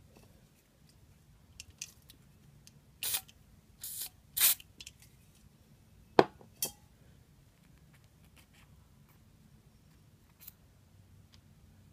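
Small metal parts of a spinning reel, its pinion gear and ball bearing, being handled and worked apart: three short hissing scrapes between about three and four and a half seconds in, then a sharp click about six seconds in, a softer one just after, and a few faint ticks later.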